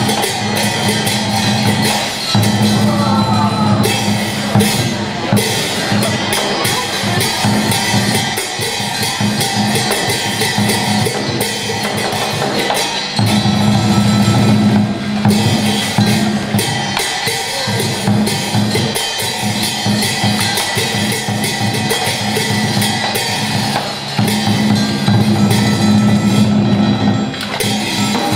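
Traditional Vietnamese music played for a water puppet show, with drums and percussion driving it throughout and heavier drumming swelling and falling back several times.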